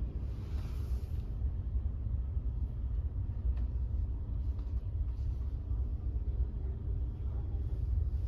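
Low, steady rumble with a couple of faint clicks in the middle, and no speech.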